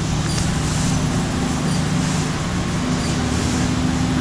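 A four-colour central-impression flexographic printing press running, printed BOPP film travelling over its rollers: steady machine noise with a low hum.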